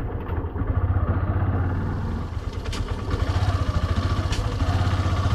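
Motorcycle engine running at low speed, with a steady fast pulsing exhaust note and two brief clicks near the middle.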